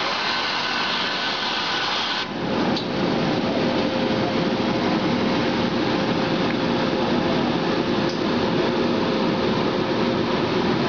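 Sankosha DF-100U form finisher running a cycle. For about two seconds steam hisses through the jacket on the form, then it cuts off abruptly and gives way to the steady rush of the air blower, with a faint hum, as the cycle moves from steaming to drying.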